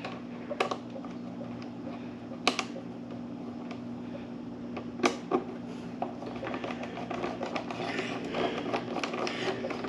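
Scattered sharp clicks and taps of hand work on the motorcycle's windshield and front fairing parts during reassembly, over a steady low hum. The small clicking and rustling gets busier near the end.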